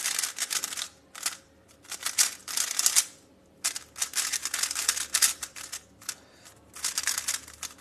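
MoYu WeiLong WR M 3x3 speedcube being turned fast, its plastic layers clicking in several quick bursts of turns with short pauses between.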